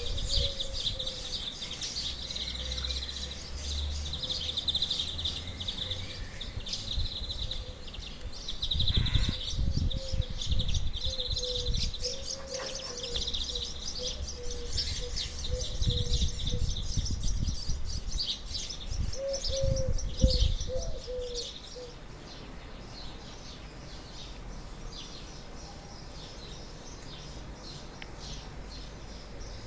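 Birds chirping and twittering in quick, repeated calls, busy for the first twenty seconds or so and then thinning out. A few dull low thumps come in the middle, the loudest about twenty seconds in.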